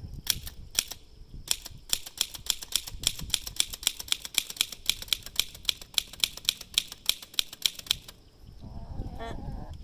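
Barr portable typewriter being typed on: a quick, even run of key strikes, about five a second, that stops about eight seconds in.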